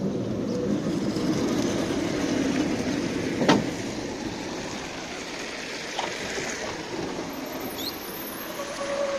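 Steady running noise of a standing 71-619 tram as someone boards through its door, with one sharp knock about three and a half seconds in and a few lighter clicks after it.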